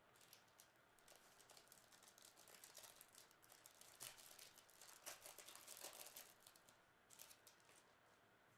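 Faint crinkling and crackling of trading-card packaging being handled and opened, a quick string of small crisp clicks that is a little louder around the middle.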